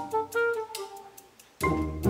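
Background music, an upbeat instrumental tune, that dies away almost to nothing about one and a half seconds in and comes back in strongly just after.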